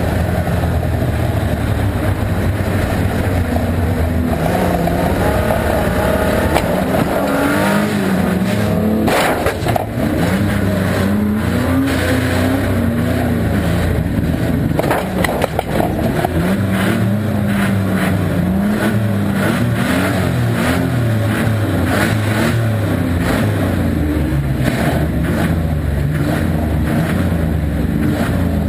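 Volvo estate banger's engine heard from inside the stripped-out cabin, revving up and down again and again, with a few sharp knocks and clatters about a third and halfway through.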